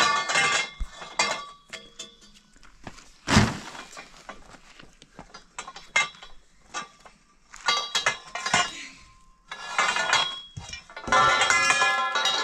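Steel pipes and bars clanking and ringing as they are handled, dropped and struck against one another, in irregular bursts; the loudest is a heavy clank a little over three seconds in.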